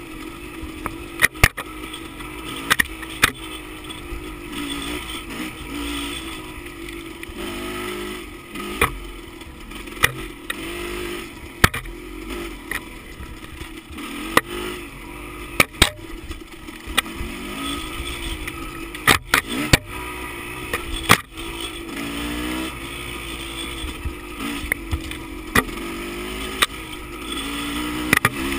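Off-road motorcycle engine revving up and down over and over as the dirt bike climbs a rough trail, with frequent sharp knocks and clacks from the bike jolting over rocks and ruts.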